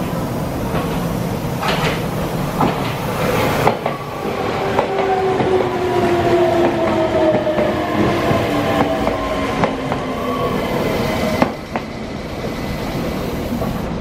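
Red Meitetsu electric train running along the adjacent track, its wheels clacking over rail joints. Its traction motors give a whine that falls slowly in pitch as it slows, then cuts off suddenly about three quarters of the way through.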